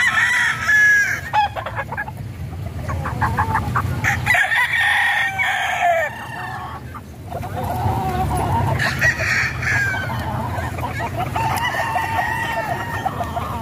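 Several gamecocks crowing and hens clucking, a few separate drawn-out calls with short clucks between them.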